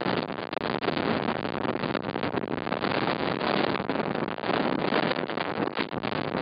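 Strong wind buffeting the microphone, a dense rushing noise that rises and falls in gusts.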